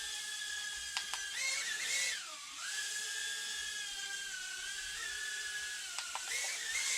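Eachine E010 micro quadcopter's four brushed motors, upgraded to 67,000 rpm, whining steadily at high speed in flight. The pitch surges up about a second and a half in, dips sharply, then settles back, and it rises again near the end, the sound of bursts of throttle during flips. A few faint clicks come about a second in and again near six seconds.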